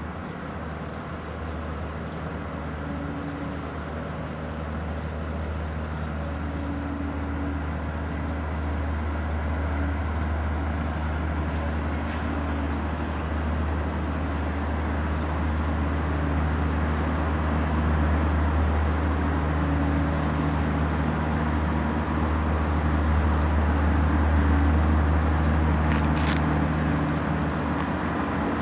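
Steady low rumble of outdoor background noise that slowly grows louder, with faint humming tones coming and going.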